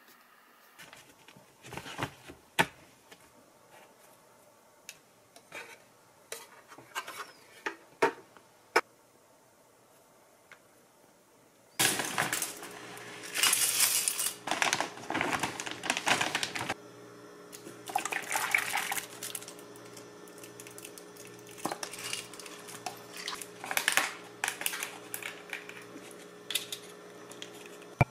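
Faint pen scratches and paper page-turning clicks, then, about twelve seconds in, kitchen clatter: cereal scooped from a rustling plastic bag into a glass bowl, and a spoon clinking against the glass, over a steady low hum.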